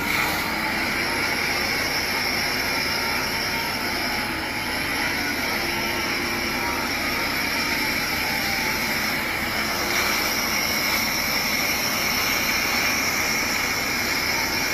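High-pressure water cannon jet from a fire engine spraying: a steady, unbroken rushing hiss.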